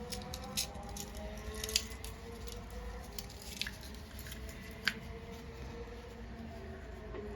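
Light clicks and scrapes of small metal tools and carburetor parts being handled while a clogged carburetor main jet is being cleaned, with a handful of sharper ticks. A faint hum with slowly wavering pitch runs underneath.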